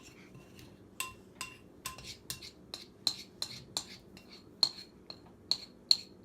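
A spoon stirring cake batter, clinking repeatedly against the side of its cup with short ringing clinks, about two to three a second, quickening about halfway through.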